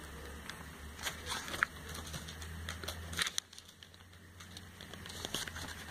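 Pages of a glossy paper catalogue being handled and turned: soft paper rustles and light crackles, a few at a time.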